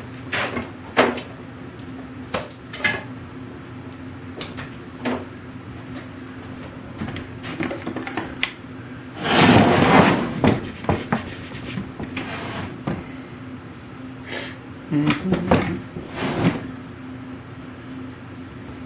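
Knocks, clicks and rubbing of wooden parts being handled, with a louder rushing noise lasting about a second and a half about nine seconds in, over a steady low hum.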